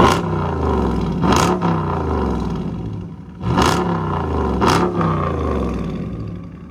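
2019 Dodge Challenger R/T's 5.7-litre Hemi V8 revved through an exhaust with a mid-muffler delete: four sharp throttle blips, each falling back toward idle, with the engine settling to a quieter idle near the end.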